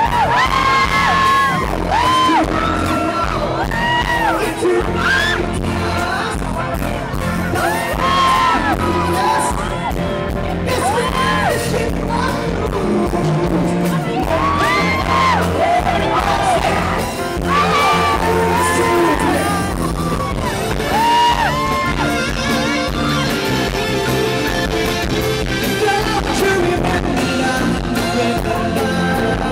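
A rock band playing live with a lead singer, while fans close by repeatedly scream and whoop over the music.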